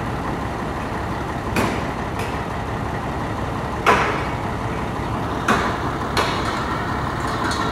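Truck engine running steadily while a boom truck crane lowers a trailer-mounted CompAir air compressor, with five short knocks as the hoisted compressor is set down, the loudest about four seconds in.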